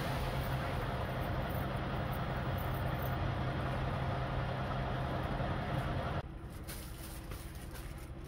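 Steady low hum of idling semi-truck diesel engines. About six seconds in it drops suddenly to a quieter, muffled hum, heard from inside the truck cab once the door is shut.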